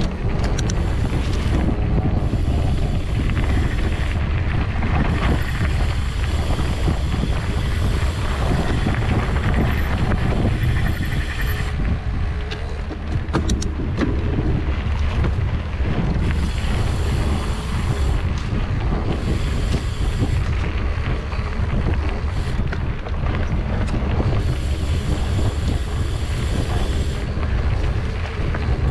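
Wind buffeting the microphone of a camera riding along on a moving mountain bike: a loud, steady low rumble of rushing air, with a few sharp clicks or rattles about halfway through.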